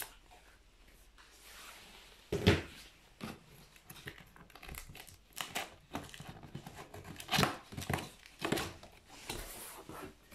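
Cardboard box being opened by hand: packing tape tearing and cardboard flaps rustling and scraping, with one sharp rip about two and a half seconds in and shorter scrapes after it.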